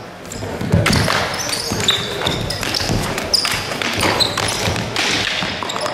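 Stick-fighting sparring in a sports hall: sticks cracking against each other and against padded gear in a string of sharp knocks, with sneakers squeaking briefly on the wooden floor now and then.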